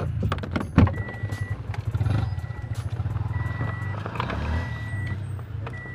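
A car's warning chime beeping steadily, one short high beep about every second, the reminder that sounds while the driver's door stands open. Under it runs a low steady rumble, with one sharp knock just under a second in.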